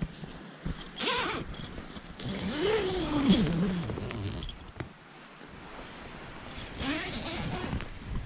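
Mosquito-net zipper of a DD camping hammock being pulled open in long zips, about a second in and again near the end, with nylon fabric rustling as the occupant moves. A short vocal sound falling in pitch comes about three seconds in.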